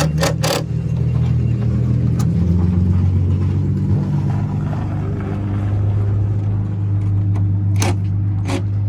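A vehicle engine idling, a steady low drone that drops slightly in pitch about two seconds in. There are a few sharp clicks, twice near the start and twice near the end.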